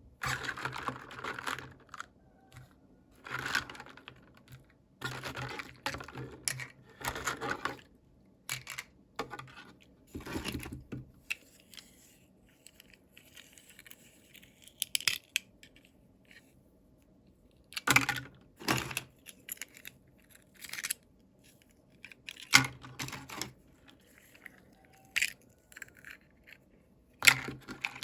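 Toy packaging being opened and handled: bursts of crinkling and tearing, a second or so each, with sharp clicks in between.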